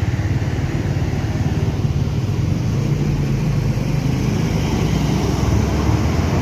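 Intercity bus's diesel engine rumbling low and steady as it pulls out, growing slightly louder.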